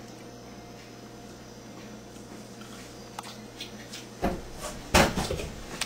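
Kitchen handling sounds at a cupboard and counter: a few light clicks, then two loud knocks with a short clatter after each, about four and five seconds in, over a steady low hum.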